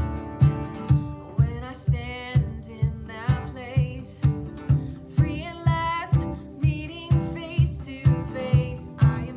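Worship song playing: a singing voice over strummed guitar and a steady beat of about two thumps a second.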